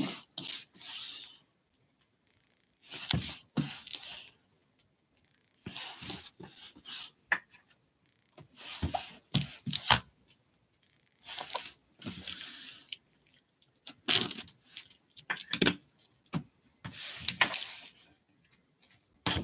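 Cardboard shipping case handled with nitrile-gloved hands: slid, turned over and set down on a tabletop mat, giving repeated short bursts of scraping and rubbing with a few sharp knocks among them.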